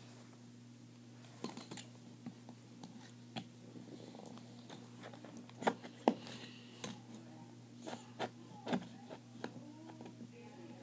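Scattered light clicks and taps of small plastic pieces being handled and worked by hand, with a few sharper clicks in the middle, over a steady low hum.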